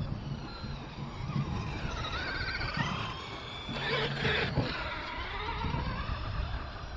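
Battery-electric RC trucks driving on grass, their motors whining and wavering up and down in pitch with the throttle, and a louder rushing surge about four seconds in as a truck comes close.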